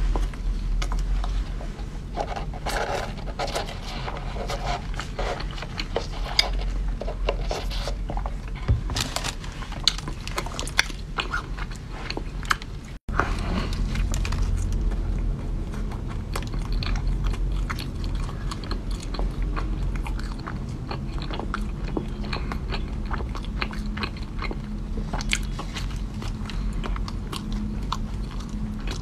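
Chewing and biting of soft bread pastry, with crackly clicks from the crumbly crust of a green-topped bun being torn apart by hand. The sound cuts out for a moment about thirteen seconds in.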